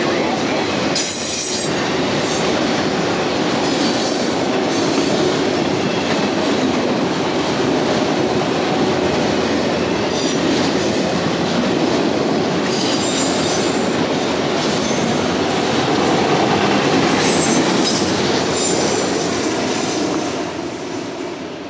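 Autorack cars of a freight train rolling past: steady wheel and car noise, with brief high squeals from the wheels now and then. The last car goes by and the sound fades near the end.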